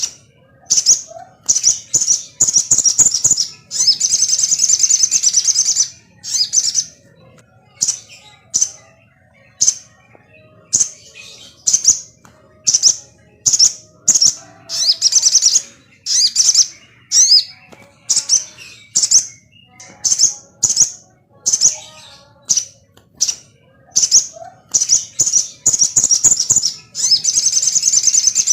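Sogon bird calling: sharp, high chirps repeated about once a second, broken by longer fast chattering runs near the start and again near the end. It is a lure song, played to provoke another sogon into singing.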